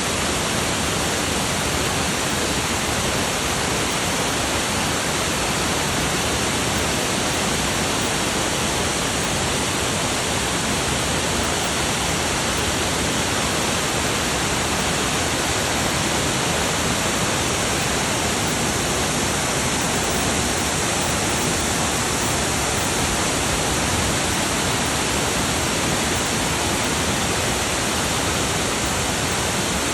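Waterfall rushing: a loud, steady roar of falling water that doesn't change.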